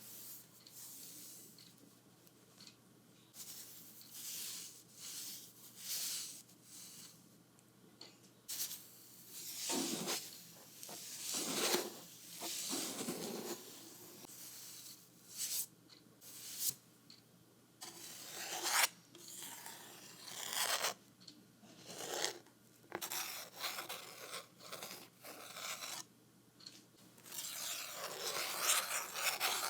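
A painting tool rubbing and scraping through paint on a wooden board in a series of irregular strokes, each a second or two long, which run together into a longer stretch of rubbing near the end.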